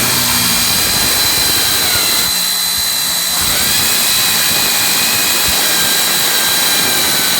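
APR hammer drill set to concrete mode, boring into a solid cast-concrete column: a loud, steady drilling noise with a high whine, easing briefly about two seconds in before pressing on again.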